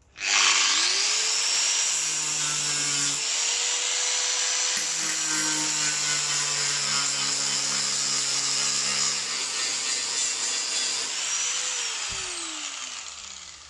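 Angle grinder spinning up, grinding down fresh welds on the steel rear quarter panel with a steady rasp, then winding down with a falling whine near the end.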